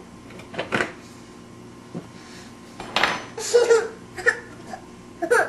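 Spoons and dishes clinking in a dishwasher rack as a toddler handles them, in scattered short clatters, with a few brief bursts of baby babbling around the middle.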